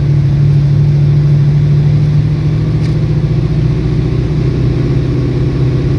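2003 Mustang SVT Cobra's supercharged 4.6-litre V8 running under load, heard from inside the car, a steady engine drone whose pitch drops a step about four seconds in. The engine has a dead cylinder and burns oil.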